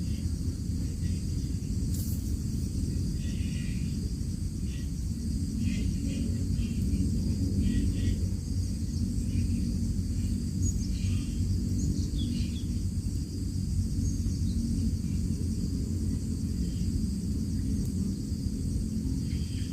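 Outdoor field ambience: a steady high insect drone, with a low rumble of wind on the microphone and short high chirps scattered throughout.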